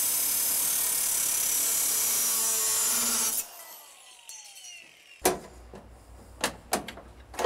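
Cordless angle grinder running against a metal piece with a steady, hissing grind for about three seconds, then switched off, its disc whining down as it slows. After that come a few sharp knocks and clicks of hand work on metal.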